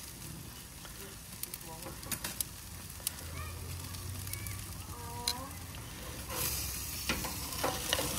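Tomahawk steak sizzling as it cooks, with scattered pops and crackles; the sizzle swells briefly about six seconds in.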